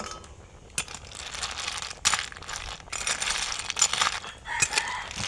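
Snail shells clinking and scraping against each other and the dish in short, irregular noisy bursts with sharp clicks, as cooked snails are handled and eaten.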